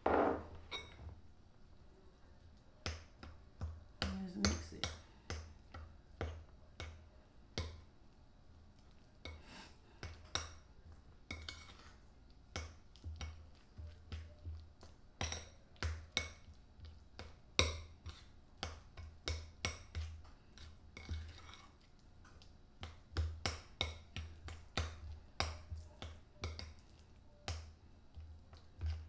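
Metal spoon clinking and scraping against a ceramic bowl while stirring and mashing deviled-egg yolk filling: irregular sharp clinks, one or two a second, each with a dull knock.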